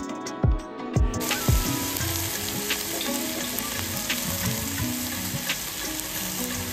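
Sliced onions and a green chilli frying in hot oil in an open stainless steel pressure cooker: a steady sizzle with occasional small pops. It comes in about a second in, after a second of background music.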